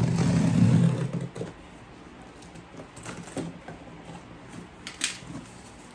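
Scissors slitting the packing tape on a cardboard box: scattered clicks, scrapes and rustles of blade and tape against cardboard, with a sharper click near the end. A low hum fills the first second, then stops.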